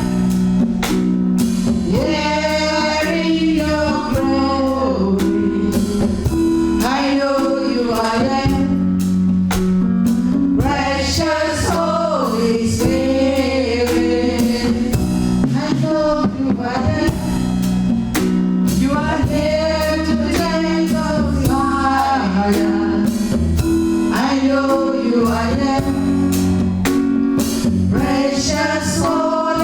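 Live gospel music: a singer with backing voices over a band with bass and a drum kit keeping a steady beat.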